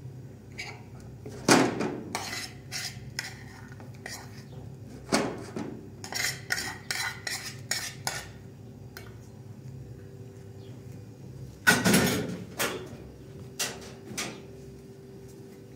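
Dishes and cutlery clinking and knocking as they are handled, in irregular strokes, the loudest about a second and a half in and again about twelve seconds in, over a faint steady hum.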